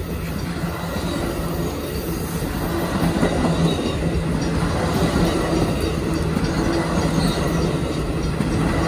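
Amtrak Superliner bi-level passenger cars rolling past, a steady rumble and clatter of steel wheels on the rails that grows slightly louder.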